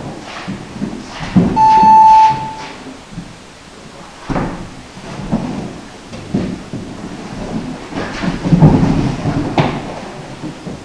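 Video game battle sounds from a laptop: irregular rumbling blasts and thuds, with one steady electronic beep lasting about a second, about two seconds in.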